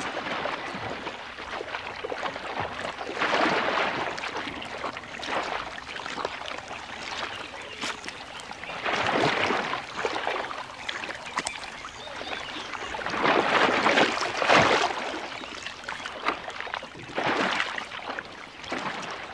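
Muddy water splashing and churning as crocodiles thrash and spin on a carcass in a shallow pool, rising in loud surges of splashing a few seconds apart.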